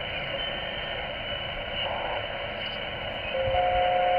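Xiegu G90 HF transceiver's speaker giving receiver hiss and static on the 20-metre band in upper sideband, the noise confined to a narrow voice-width band, as the dial is stepped up through the frequencies. Near the end two steady whistle tones sound together for about a second, louder than the hiss.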